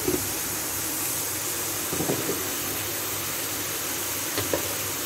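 Steady hiss of chopped onions and spices frying in oil in a pan on the stove, with a couple of faint knocks about two and four and a half seconds in.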